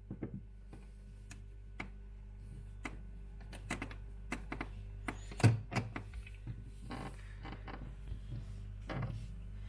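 Fridge freezer running with a steady low hum, over which come a string of sharp clicks and knocks of plastic parts being handled, the loudest a knock about five and a half seconds in.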